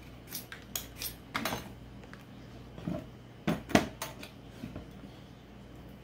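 Metal kitchen utensils (a peeler, knife and spoon) knocking and scraping against a plastic cutting board and a halved butternut squash as the seeds are scooped out: a run of irregular clicks and knocks, the loudest a little under four seconds in.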